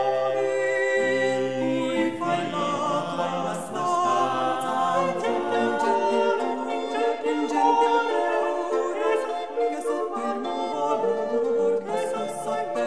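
Unaccompanied choir singing, several voices holding slowly changing chords.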